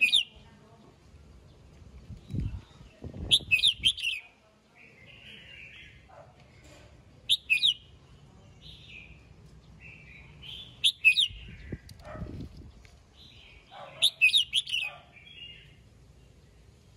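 Red-whiskered bulbul singing: bursts of loud, quick whistled phrases every few seconds, with softer chattering notes between them. Two low thumps, one about two seconds in and one near the middle.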